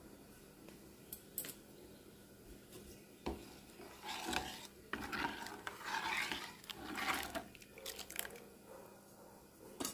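Metal spoon stirring thin lentil dal in a metal pot, scraping against the pot and swishing through the liquid in strokes about a second apart, starting about three and a half seconds in. A few faint clicks come before it.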